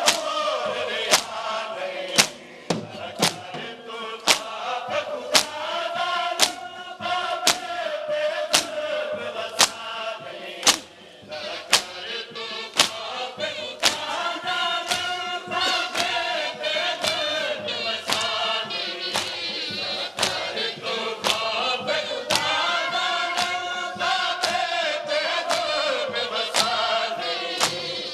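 A crowd of men chanting a noha, a Shia mourning lament, together in a slow refrain, with sharp hand strikes of matam (chest-beating) keeping time about once a second.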